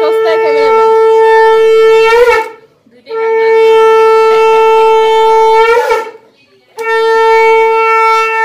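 Conch shell (shankha) blown in three long, steady blasts of about three seconds each, with short gaps between them. Each blast ends with a brief waver in pitch.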